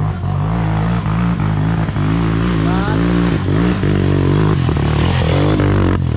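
Dirt bike engine running under varying throttle, its pitch rising and falling, with a few sharp knocks.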